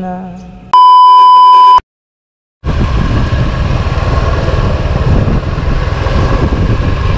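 Soft music dies away, then a loud, steady, high-pitched electronic beep lasting about a second cuts off into a moment of dead silence. About two and a half seconds in, a loud, steady rushing rumble starts and carries on.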